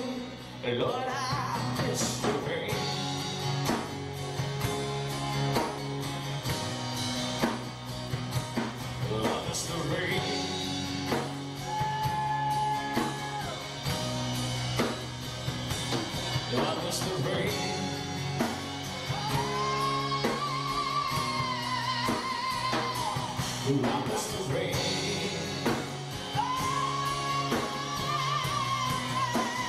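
Live rock band music in an acoustic set: a male lead vocalist singing long held notes with vibrato over acoustic guitar and drum kit. Two of the held notes, in the second half, last several seconds each.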